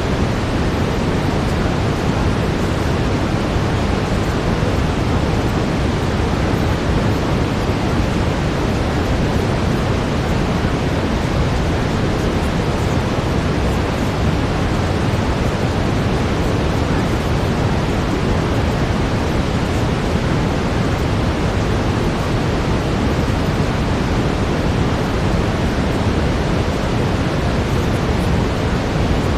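Steady brown noise: an even, deep hiss that does not change, with any layered affirmations buried too low to make out.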